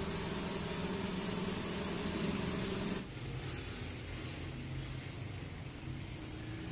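TIG welding arc on stainless steel, a steady buzzing hum with hiss. About three seconds in it cuts off abruptly, and a quieter steady machine hum takes over.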